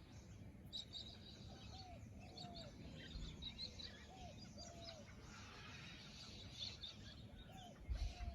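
Several wild birds calling: a short, arching lower call repeated every second or so, with quick high chirps among it, over a faint low rumble. A few low thumps come in near the end.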